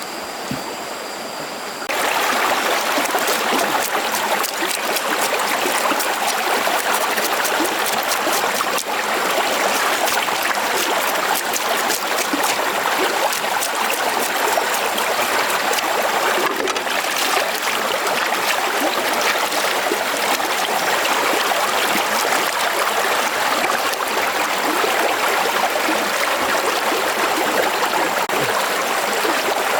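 Steady rush of running stream water, stepping up sharply in level about two seconds in and then holding even.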